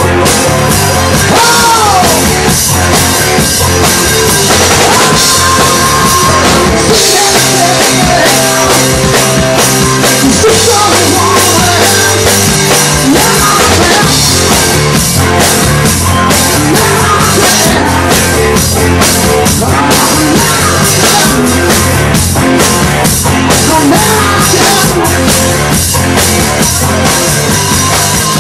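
Loud live rock music: a drum kit played hard and fast, with dense drum and cymbal hits, under the rest of the band.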